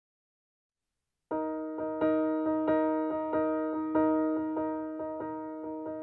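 Silence for about a second, then background music: a piano-type keyboard playing a repeated chord in a steady pulse.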